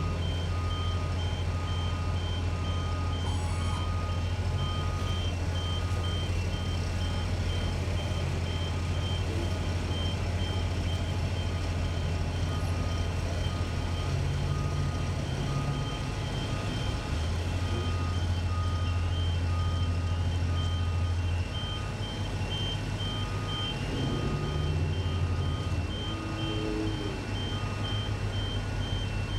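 Heavy construction equipment running with a steady low engine drone. Backup alarms beep over it in an even, repeated rhythm, two of them at different pitches. The engine note shifts a couple of times partway through.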